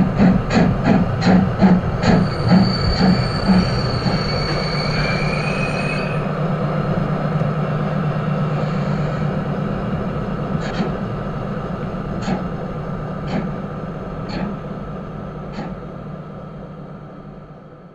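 O-gauge model steam locomotive and train running along the track, heard from on board: a steady running hum and rail noise, with a regular beat of about three a second for the first few seconds and a few single clicks later. The sound fades out near the end.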